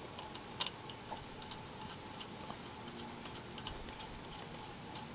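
Light metallic clicks and ticks from a Honda Dash engine's cam sprocket and timing chain being handled while the cam timing is set. One sharper click comes about half a second in, then fainter scattered ticks.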